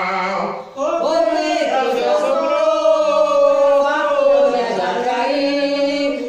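Men chanting a Tambor de Mina doutrina (sacred hymn) in long, held and gliding notes, with a short break for breath just under a second in.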